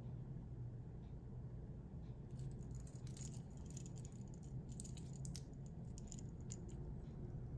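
Stainless steel watch bracelet links and fold-over clasp clinking and rattling lightly as the watch is handled, a run of small metallic clicks starting about two seconds in, over a steady low hum.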